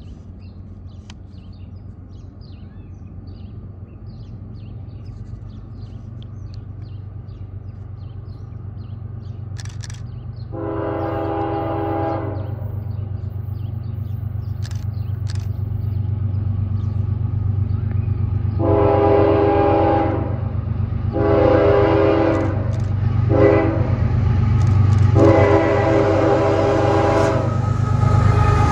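A crossing signal's WRRS mini bell ringing steadily as a CSX freight train's diesel locomotive approaches, its low rumble growing louder throughout. The locomotive horn gives one long blast, then after a pause the standard grade-crossing signal: long, long, short, long.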